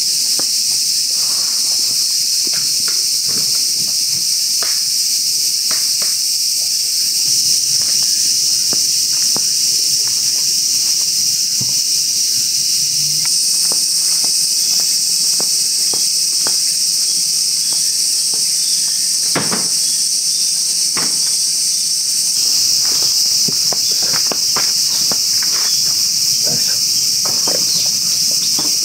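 Loud, steady high-pitched chorus of summer insects, with scattered footsteps and light knocks of camp gear being handled.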